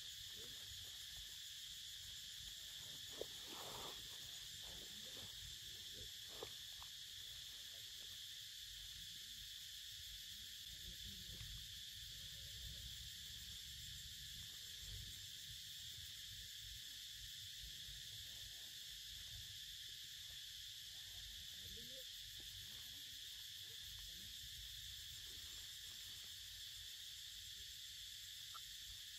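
Faint, steady insect chorus: a continuous high drone of cicadas or crickets, over a low rumble. A couple of sharp clicks sound about three and six seconds in.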